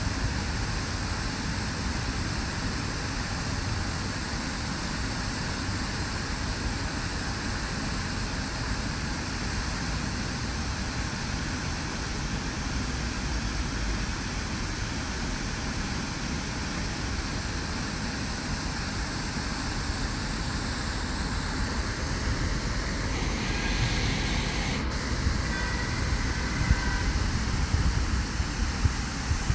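Fountain water jets, a tall central spout and a ring of smaller ones, splashing steadily into the basin as a constant rushing hiss, with road traffic underneath. Near the end a tram passes, with faint high squealing tones.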